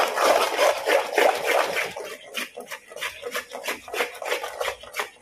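Metal spoon stirring and scraping thick, wet almond halwa around a metal kadai: quick squelching, scraping strokes, heavier for the first two seconds and then lighter and more broken. The halwa is being cooked down in ghee after the sugar has melted, until it thickens.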